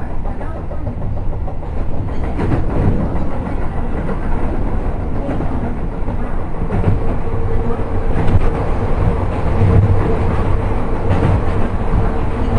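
Keio 7000 series electric train running on the rails, heard from inside the passenger car: a steady rumble of wheels and track. About seven seconds in, a steady hum joins the rumble.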